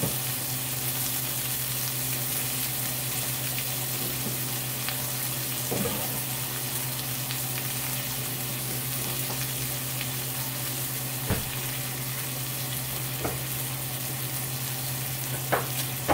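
Pork chop sizzling steadily in a hot cast-iron skillet, over a steady low hum, with a few brief faint knocks.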